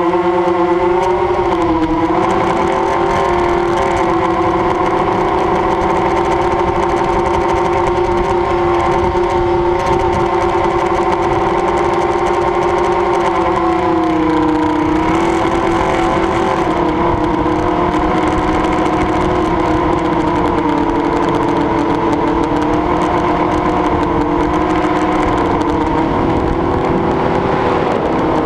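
Motor and propeller of a radio-controlled aircraft heard from its onboard camera: a steady pitched drone over rushing wind noise. The pitch wavers about two seconds in, drops slightly about halfway through, and falls again at the very end.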